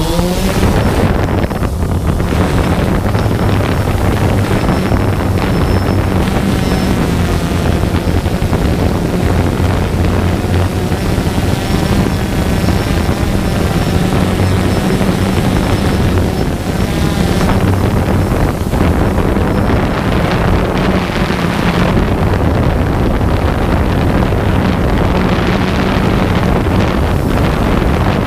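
DJI Phantom 2 quadcopter's motors and propellers running steadily in flight: a loud, constant buzzing hum, with heavy wind noise on the microphone.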